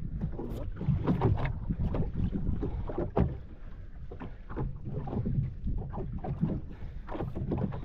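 Wind on the microphone and water slapping against a small fishing boat's hull, with scattered knocks and clatter on board.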